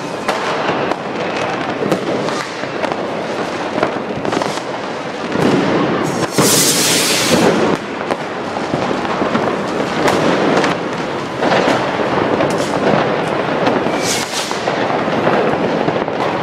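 Dense New Year's Eve fireworks going off close by: rockets bursting and firecrackers banging in a continuous crackle, with a louder, longer burst about six seconds in and another sharp one near fourteen seconds.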